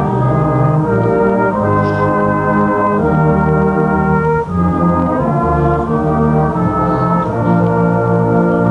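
Brass band playing a slow piece in held chords that change about once a second, with a short breath between phrases partway through.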